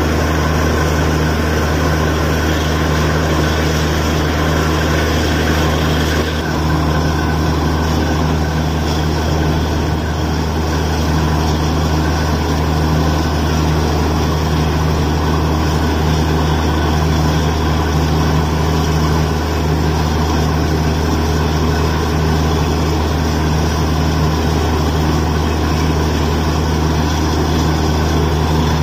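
Borewell drilling rig running steadily under load, a loud, unbroken low engine drone as it drills, with water and slurry being blown up out of the bore.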